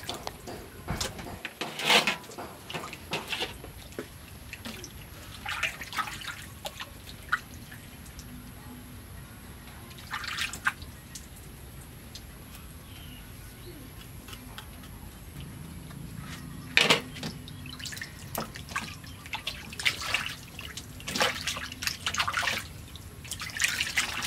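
Water splashing and dripping in a stainless-steel basin as raw pig legs are rubbed and rinsed by hand, in short irregular bursts with quieter gaps between.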